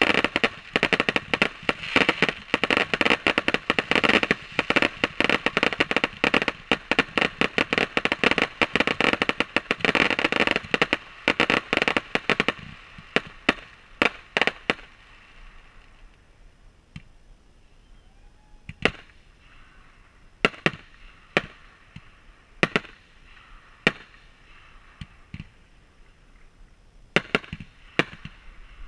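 Aerial fireworks launching and bursting. A rapid, dense barrage of bangs fills roughly the first twelve seconds, then it thins to separate single bangs every second or two.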